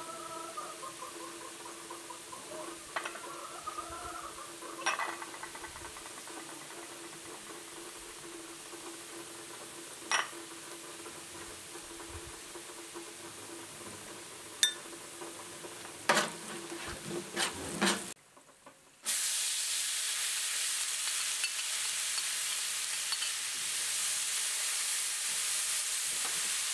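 A few light clinks of spoon and bowls. After a short gap, a wide pan of food sizzles steadily, frying over the stove while it is stirred with a spoon.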